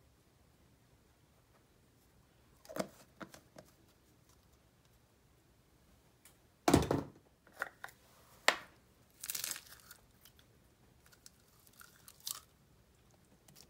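Scattered handling noises from slime and plastic slime tubs being worked over a glass bowl, a few short sounds with quiet gaps between them. The loudest is a thump about seven seconds in.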